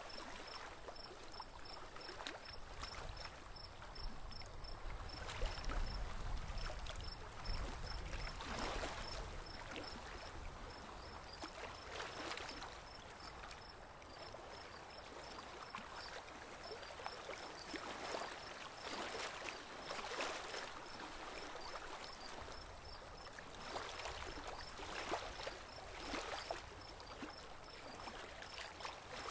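Water lapping and splashing around a small boat moving slowly on a river, in soft swells every second or two, with a faint high-pitched ticking repeating about three times a second.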